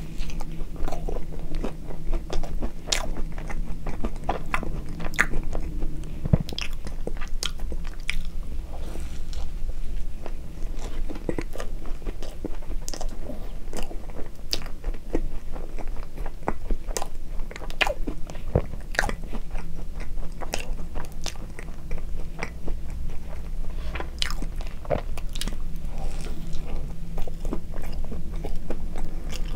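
Close-miked chewing of a cream-filled red bean bun (soft bread, whipped cream and sweet red bean paste), with many sharp mouth clicks throughout.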